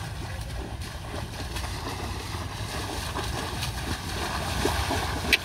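Wind buffeting the microphone outdoors: a steady low rumble with a faint hiss above it, and a single sharp click just before the end.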